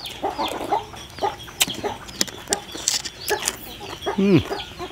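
Chickens clucking, a run of short calls with a longer falling call about four seconds in, over scattered sharp ticks.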